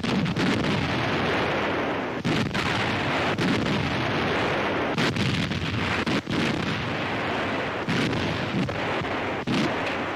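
Heavy anti-aircraft guns firing repeatedly: sharp shots every second or so over a dense, continuous rumble of gunfire.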